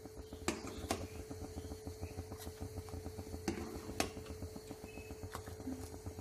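Steel ladle clinking against a steel bowl and kadhai as sugar syrup is ladled out, about six light clinks spread irregularly over a steady low hum.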